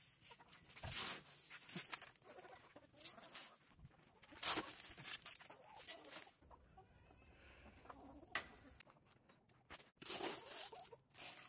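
Hens clucking quietly while mixed feed is scattered for them, with scattered rustles and knocks. Near the end, feed pellets pour into a galvanized metal bucket.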